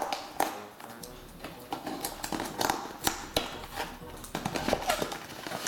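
Cardboard box being opened by hand: its top flap pried and pulled open, giving a string of irregular small clicks, scrapes and tearing sounds.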